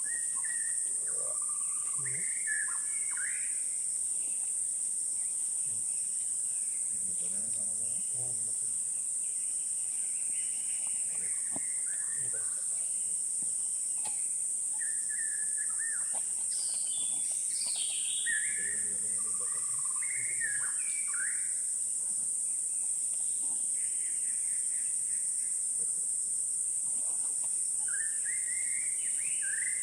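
Forest ambience: a steady, high-pitched drone of insects runs under many short bird chirps and whistled calls that come and go.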